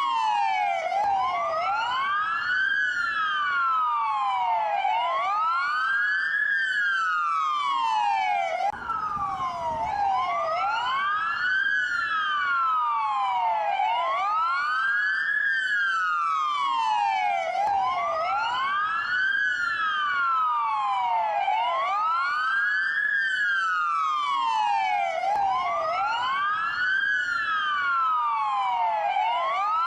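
Dual police wail siren: two siren tones slowly rising and falling, out of step with each other, each full rise and fall taking about four seconds.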